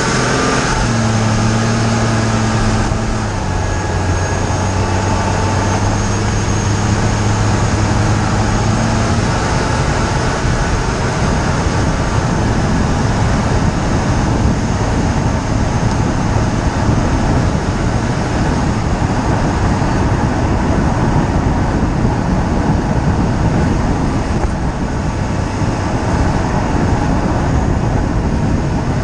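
Road, tyre and wind rush from a moving BMW E46 325xi, picked up by a camera mounted in the wheel well behind a tyre. A steady low hum runs under it for about the first nine seconds, then fades into the rush; no separate clunk stands out.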